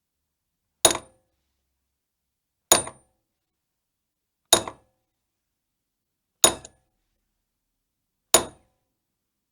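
Hammer striking metal, five single blows evenly spaced about two seconds apart, each a sharp clink with a short metallic ring that dies away quickly.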